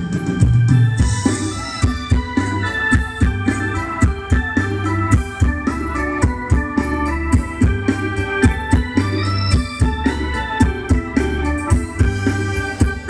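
Thai ramwong dance band playing an instrumental stretch with no vocals: an organ-like lead melody over a deep bass line and a steady drum beat.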